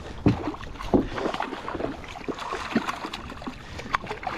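Irregular clicks and knocks aboard a fishing kayak while a freshly landed sea bass is handled, over the steady noise of wind and water.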